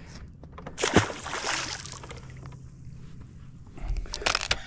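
A striped bass released over the side of a boat, hitting the water with a sharp slap about a second in and splashing for about a second. Near the end, a brief swish as a baitcasting rod is cast again.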